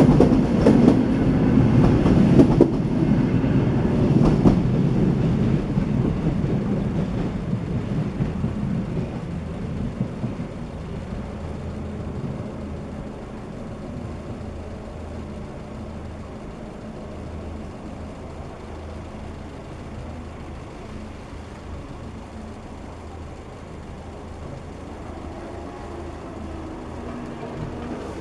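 A train passing over a level crossing, its rumble and wheel clatter loud at first and fading away over about ten seconds, leaving a low steady hum.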